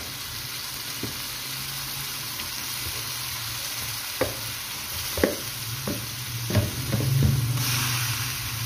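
Raw chicken pieces sizzling as they go into hot ghee, yogurt and fried onion masala in a frying pan, with several knocks as pieces drop in. The sizzle grows louder near the end.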